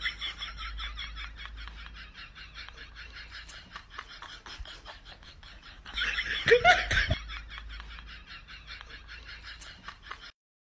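High-pitched laughter in rapid, even pulses that slowly fade, with a louder burst of laughing about six seconds in. It cuts off suddenly near the end.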